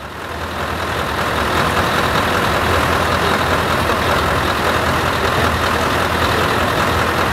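Heavy truck's diesel engine idling steadily, fading in from silence over the first second or so.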